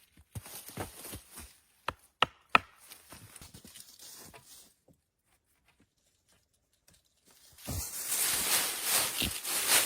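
Irregular knocks and taps, three sharp ones about two to two and a half seconds in, then a pause, then a steady scraping rustle from about eight seconds in.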